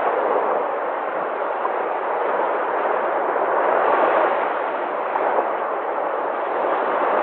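Sea waves washing and breaking in a continuous rushing surge that swells a little about four seconds in.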